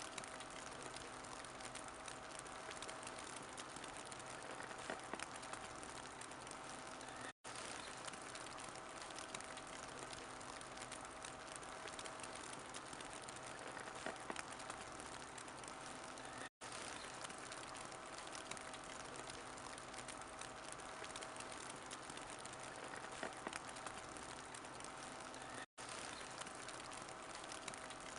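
Wood fire crackling steadily in a fireplace, with scattered small pops. The sound drops out completely for an instant three times, about every nine seconds.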